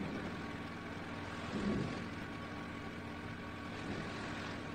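Anak Krakatau volcano erupting: a continuous rumble from the eruption column, swelling briefly about one and a half seconds in.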